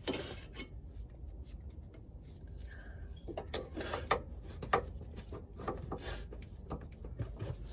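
Hand tools scraping and clicking against metal while working at a stuck inner tie rod, in short irregular strokes over a steady low rumble.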